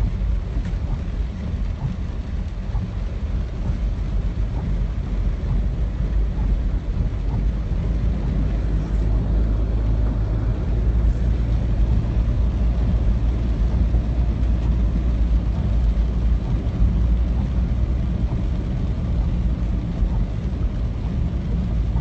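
Car driving through deep floodwater, heard from inside the cabin: a steady low rumble of the engine and of water surging against the front of the car, growing a little louder about a third of the way in.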